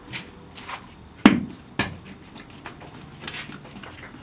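Bread dough slapped and pressed down by hand on a stone slab while being shaped into a flat loaf: a few dull thuds, the loudest about a second in and another half a second later, with lighter taps around them.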